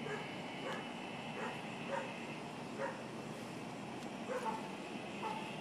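A dog barking repeatedly in short calls, about one to two a second, with a pause of about a second midway.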